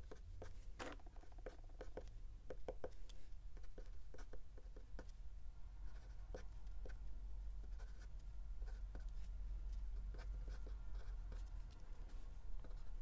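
Fineliner pen tip on paper, tapping in dots and flicking short strokes: irregular light ticks and scratches, over a low steady hum.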